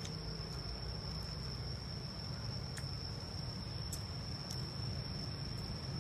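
Steady high-pitched insect trill, cricket-like, running without a break over low steady background noise, with a few faint ticks.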